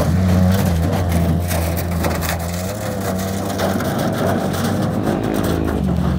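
A washing machine dragged along the ground behind a Mitsubishi Mirage, scraping and clattering without a break over the steady drone of the car's engine.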